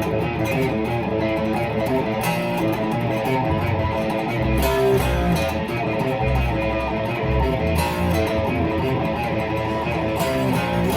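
Guitar-led music: electric guitar playing over low bass notes, with percussive hits.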